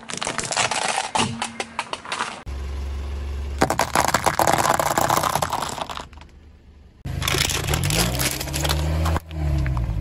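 A car tyre rolling slowly over brittle plastic toy pieces and crushing them: a rapid run of cracks and snaps, then more crunching in a few short separate takes. The car's engine hums low under the later crunching.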